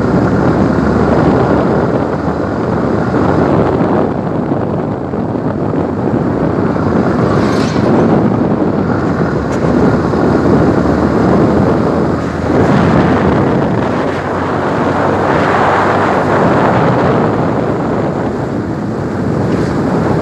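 Wind rushing over the microphone of a riding motorbike, with the bike's running and road noise beneath. The rush swells and eases now and then.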